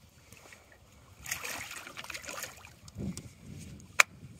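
Water splashing at the side of the boat for about a second as a striped bass is released and kicks away, then a dull thump, and near the end a single sharp hand clap, the loudest sound.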